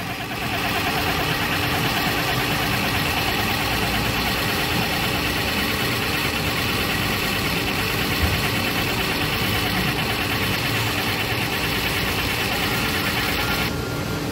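Electric valve actuator's motor and gear train running steadily as it drives to full counterclockwise, the full open position, on a 20 mA signal. The motor stops shortly before the end, as the actuator reaches about 99.7%.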